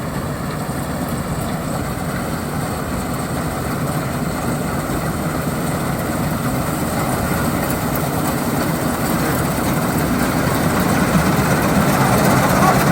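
Combine harvester's diesel engine running steadily at full throttle while it cuts paddy, growing louder toward the end.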